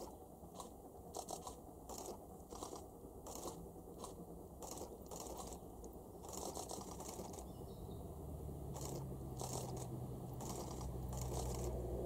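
Distant JNR C57 180 steam locomotive working hard, its exhaust chuffing at about two beats a second and slowly growing louder as it approaches. A low rumble builds from about two-thirds in.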